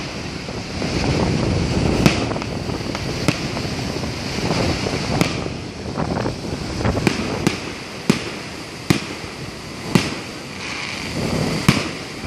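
Aerial firework shells bursting in a display, about nine sharp reports at irregular intervals of roughly a second, over a steady background of noise.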